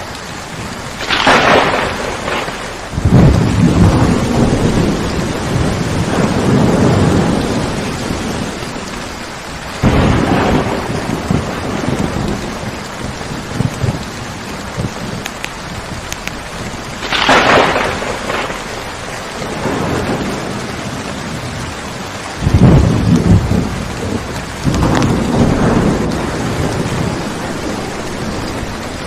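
Steady rain falling in a thunderstorm, with several claps of thunder: sharp cracks about a second in and again around the middle, and long low rumbles that swell and fade over several seconds.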